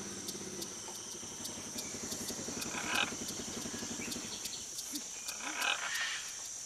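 Quiet rainforest background with a steady high-pitched hiss and faint ticking. Two soft, short raspy calls from great green macaws at their nest hole come about three and six seconds in.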